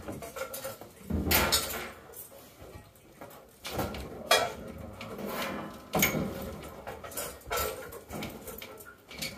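Irregular knocks, scrapes and clatter from hands working on the metal casing and pipework of an old floor-standing heating unit as it is being taken out, with a sharp knock about four seconds in.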